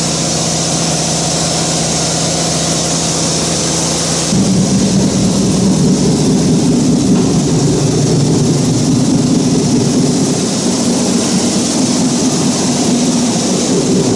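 Steady, loud machine hum from a running CNC router setup. About four seconds in it becomes louder and rougher and then holds steady.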